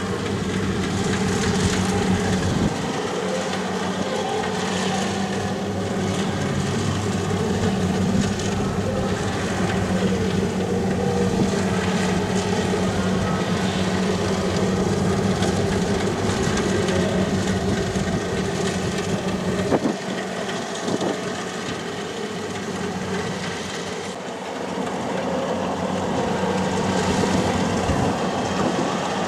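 Kubota rice combine harvester running steadily while harvesting, its diesel engine humming under the clatter and rattle of the cutting and threshing machinery; the sound eases slightly about two-thirds of the way through.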